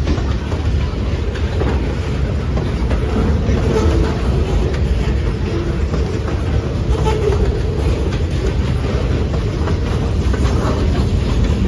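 Freight train boxcars rolling past, their steel wheels on the rails making a steady low rumble.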